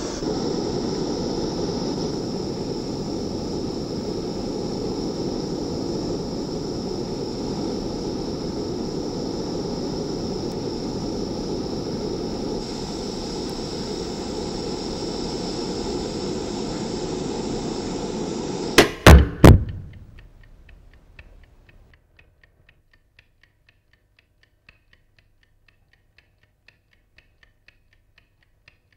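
Steady hissing roar of a gas burner flame, cut off about nineteen seconds in by three loud knocks in quick succession. Near silence follows, with faint ticking at about two ticks a second.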